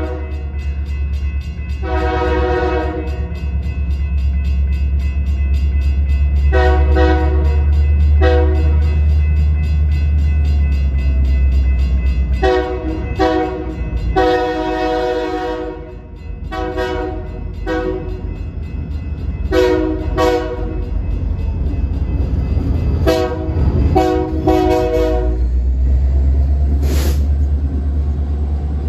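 BNSF diesel locomotive's multi-note air horn sounding for a grade crossing as the freight train approaches. It gives a string of long and short blasts over the train's loud low rumble.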